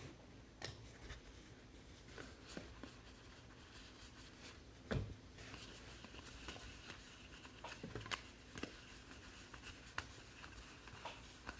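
Trading cards being handled and sorted by hand: faint scattered clicks, slides and rustles, with one louder tap about five seconds in.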